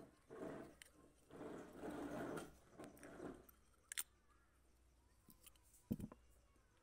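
Handling noise of small metal parts on a scooter carburettor being assembled by hand: uneven rustling and scraping for the first few seconds, then two sharp clicks about two seconds apart as parts are fitted into the carburettor body.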